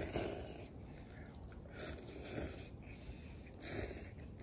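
Instant ramen noodles slurped from a metal pot with chopsticks, in several short noisy slurps.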